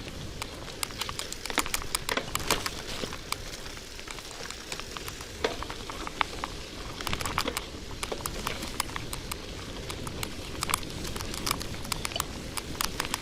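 Bicycle riding over wet mud and sand: a steady crackling hiss of the tyres through the wet ground, with many sharp clicks and rattles from the bike scattered throughout.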